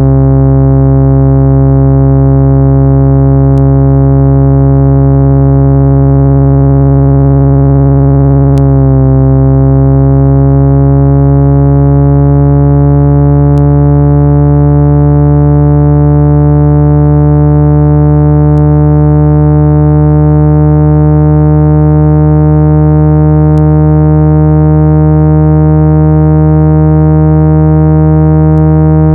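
A loud, steady electronic tone at about 165 Hz with buzzy overtones, played to vibrate dust out of a phone speaker. About nine seconds in it shifts briefly, and after that the upper overtones slowly glide upward in pitch.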